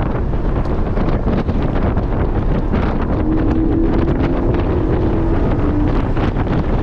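Porsche 718 GT4's 4.0-litre flat-six engine pulling at track speed, heard from inside the cabin under heavy road, tyre and wind rumble buffeting the microphone. A steady engine note holds for about three seconds in the middle.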